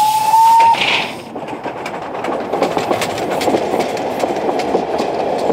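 Steam train whistle: one tone rising slightly and stopping about a second in, followed by a short hiss of steam. Then the train runs past on the track, its wheels clicking over the rail joints.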